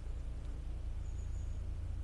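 Narrowboat diesel engine running steadily at cruising speed, a low pulsing rumble. A bird chirps faintly about a second in.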